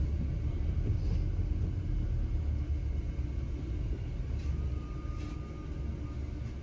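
Steady low rumble of a bus's engine and road noise, heard from inside the cabin.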